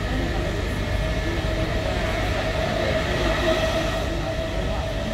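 Passenger train running along the line, heard from inside the carriage: a steady rumble with a constant hum-like tone over it.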